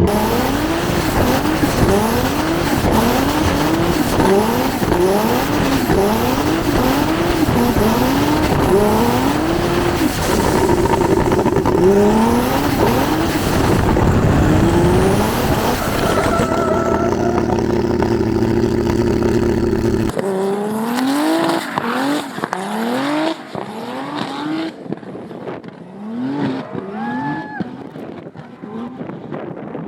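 Turbocharged BMW E46 M3 inline-six revving up and down about once a second while drifting, with tyre squeal, and holding a steady high note for a few seconds. After about 20 s it is quieter and thinner, with only occasional revs.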